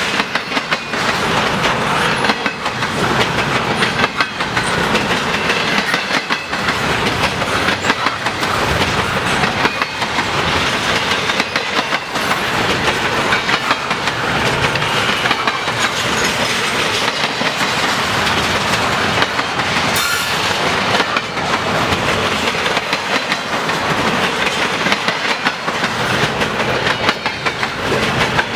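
Intermodal freight train cars rolling past at speed: a steady noise of steel wheels on the rails, with frequent irregular clicks.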